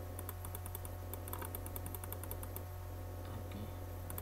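A computer mouse button clicked rapidly, about a dozen quick clicks in the first two and a half seconds, as the Grow Font button is pressed over and over, over a steady low hum.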